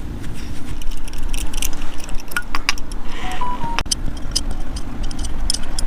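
Irregular light metallic clicks and taps from unscrewing the threaded clutch cable fitting on a Harley-Davidson, over a steady low hum.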